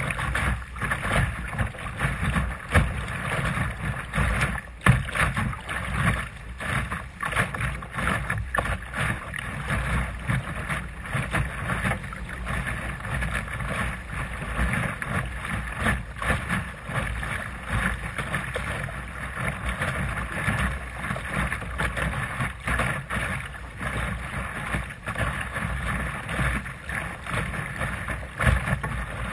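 Water splashing and slapping against the fiberglass hull of a Sunfish sailing dinghy under sail through a light chop, in irregular slaps over a steady wash, with wind buffeting the microphone.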